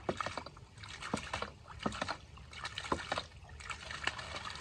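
Hydraulic ram pump's brass waste valve clacking shut at an uneven rhythm, several times a second, with water spurting and splashing out between the clicks. The pump is running irregularly instead of with a regular heartbeat; the owner later puts this down to air trapped in the drive line.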